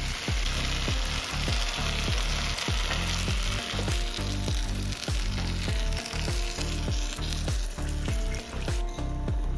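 Food sizzling as it fries in a pan, the sizzle thinning out near the end, over background music with a steady beat.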